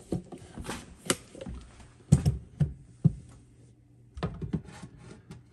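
Scattered knocks and clunks of a phone being handled and carried over to the stove, about half a dozen sharp taps with the loudest a couple of seconds in.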